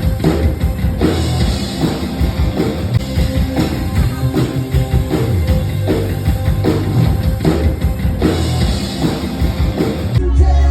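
Rock music with a steady drum-kit beat, no vocals.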